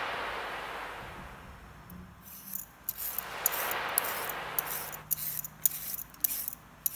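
A soft hiss swells and fades over the first two seconds. Then a metal vegetable peeler scrapes down a raw carrot in quick repeated strokes, each a short crisp rasp, coming faster and louder in the second half.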